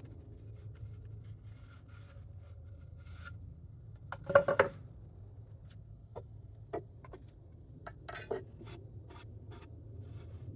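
Hand-plane and wood handling on a shooting board at a workbench: one loud knock about four seconds in, then several light clicks and taps, over a low steady hum.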